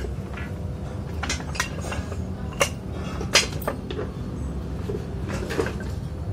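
Steel pieces clinking and clanking as they are handled and set down: a handful of sharp metallic knocks, the loudest about two and a half and three and a half seconds in, over a steady low hum.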